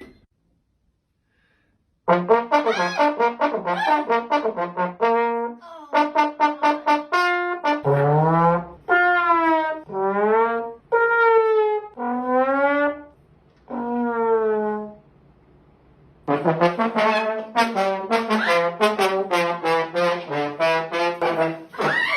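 A trombone is played for comic sound effects. After about two seconds of silence come quick short notes, then a series of long notes sliding up and down in pitch, a brief pause, and a final run of quick short notes.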